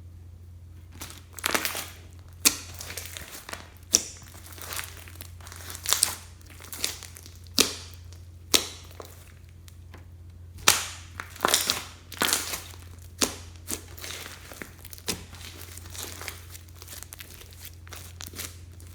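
Clear slime being squished and folded by hand, with irregular sharp pops and clicks of trapped air. A faint steady low hum runs underneath.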